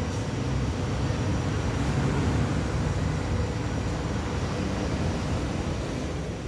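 Steady low rumbling background noise with a faint constant hum, without any distinct events.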